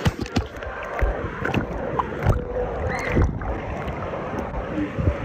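Churning, splashing pool water right at a phone's microphone, with low bumps of the phone being handled in the water.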